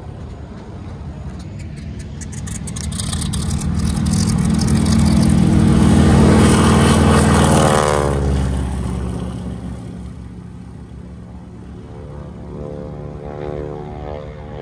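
North American T-6 Texan's radial engine and propeller in a low, fast flyby: the drone swells to its loudest about six to seven seconds in, drops sharply in pitch as the plane passes at about eight seconds, then fades. Near the end a second aircraft's engine grows louder as it approaches.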